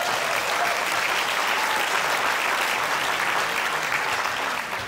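Audience applauding: dense, steady clapping from a large crowd that eases off slightly near the end.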